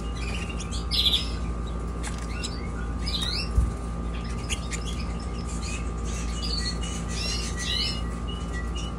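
Young canaries chirping and calling: short, mostly rising chirps scattered throughout, over a steady background hum. A brief low thump sounds about three and a half seconds in.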